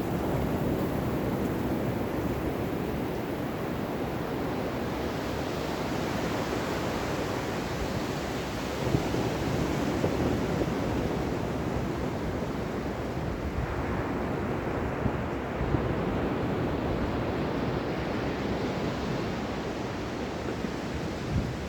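Ocean surf: a continuous rush of waves washing on a shore, with a fresh wave surging in about five seconds in and another around thirteen seconds.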